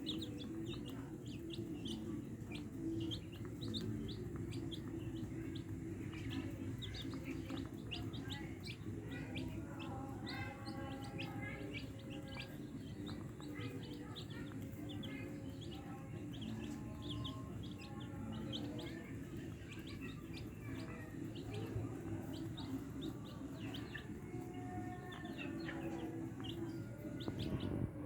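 Small birds chirping over and over, with chickens clucking in stretches, over a steady low hum.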